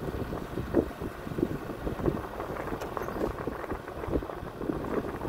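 Wind rumbling on the microphone aboard an open boat, with irregular small knocks and thumps, the sharpest about a second in.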